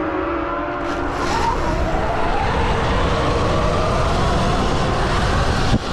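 Electric dirt bike motors (stock Sur Ron X) whining and rising in pitch as the bikes accelerate off the start, over a low rushing noise. Near the end there is a sudden jump in loudness.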